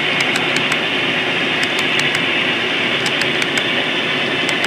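HO-scale coal hopper cars rolling past on model track, their metal wheels clicking over a rail joint in quick sets of four, about one set every second and a half, one set per car, over a steady rolling hiss.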